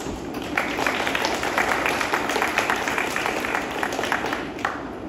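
Audience applause: many hands clapping in a dense, irregular patter that starts about half a second in and stops shortly before the end.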